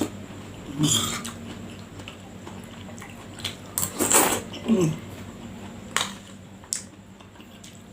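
Eating sounds: a spoon clinking and scraping against a plate, with chewing, in a handful of short separate sounds over a steady low hum.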